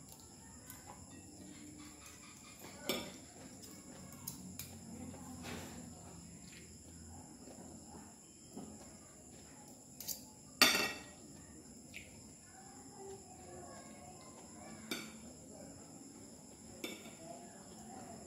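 Cutlery clinking against a plate now and then while eating, about six clinks, the loudest about ten and a half seconds in.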